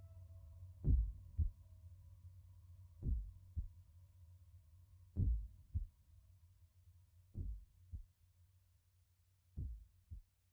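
Heartbeat sound effect: pairs of low thumps, about one pair every two seconds, growing fainter. A held low music drone fades out under it by the middle.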